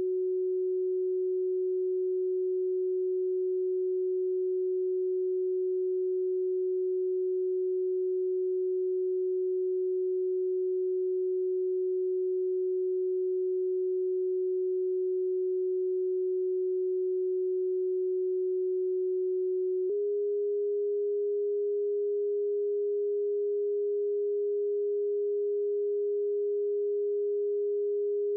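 A pure electronic sine tone, played as a Rife frequency, holding one steady low-mid pitch. About twenty seconds in it steps abruptly to a slightly higher pitch, with a faint click at the change.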